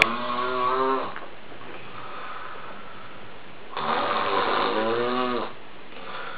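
A man snoring in long, pitched snores. One snore ends about a second in, the next runs from about four seconds in to five and a half, and a fainter one starts near the end.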